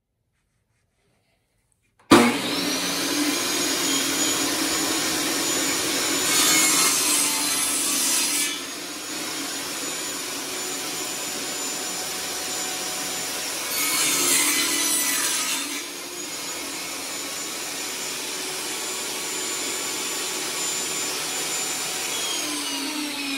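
Table saw switched on about two seconds in, its blade spinning up and running steadily. It makes two louder passes through a pine board while cutting a rabbet along its end, then spins down near the end.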